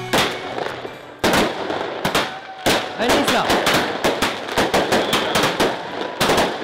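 Handheld Roman candle fireworks firing: sharp bangs in quick, irregular succession with crackling between them.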